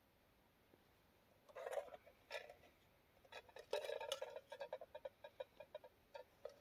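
Faint handling noise of small camping gear: a short rustle about one and a half seconds in, then a busier stretch of rustling and clicks, ending in a run of quick separate ticks about five a second.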